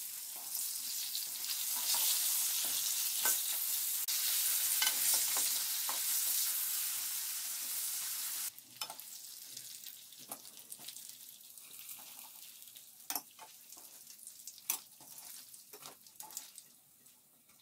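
Pieces of flounder, coated in flour and egg, sizzling in hot vegetable oil in a frying pan. About eight seconds in, the sizzle drops suddenly to a much quieter crackle with scattered sharp clicks.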